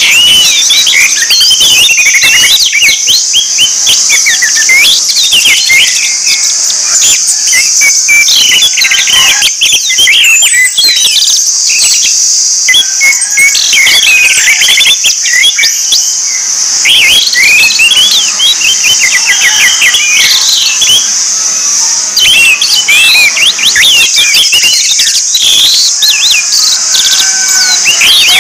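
Orange-headed thrushes singing: a fast, unbroken run of varied chirps and whistled phrases, over a steady high-pitched hiss.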